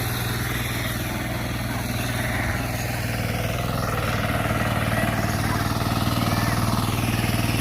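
A small engine running steadily with an even low hum, growing slightly louder about halfway through.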